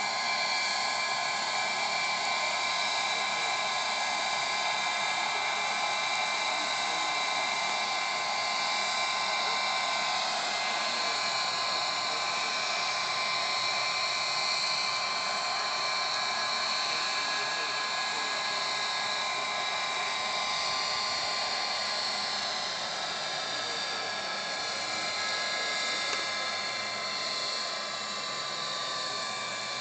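Small gas-turbine engine of a radio-controlled model helicopter running steadily in flight: a high, steady whine over a rushing hiss. In the last several seconds it gets a little quieter and its pitch shifts slightly.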